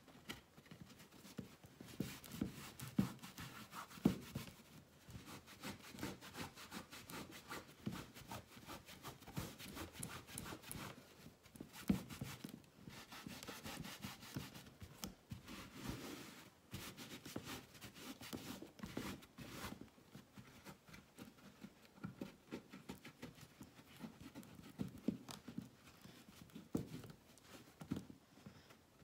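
Hands rubbing and pressing a piece of denim over a wooden box's wet-painted surface, a faint, irregular rustling and scuffing of cloth; the jeans fabric is being worked into the glaze paint to print its texture and blot up the excess.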